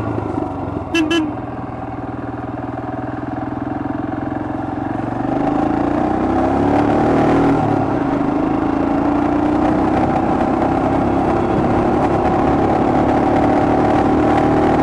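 Royal Enfield Himalayan's 411 cc air-cooled single-cylinder engine pulling in a low gear after a downshift. About five seconds in the revs and level climb as the bike picks up speed, then hold steady at the higher pitch. A short high beep sounds about a second in.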